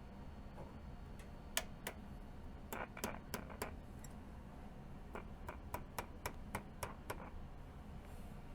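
A series of about fifteen sharp clicks over a steady low hum. The clicks come irregularly at first, then at a brisk, even pace for a couple of seconds.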